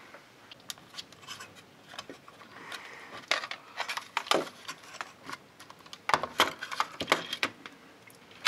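Scattered clicks and knocks of a plastic emergency-light housing and its wiring being handled and turned over while a DC plug is worked loose, with louder clusters of clatter a little past a third of the way in and again past the middle.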